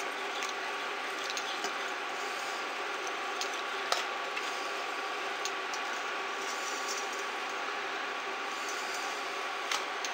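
A spatula stirring dissolving borax in a pot of near-boiling water on an induction cooktop: a steady hiss with a few faint scattered clicks against the stainless steel pot.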